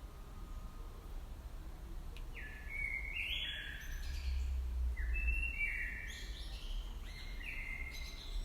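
A small songbird singing three short phrases, each a few clear notes stepping up and down in pitch, about two seconds apart, over a steady low background rumble that swells briefly in the middle.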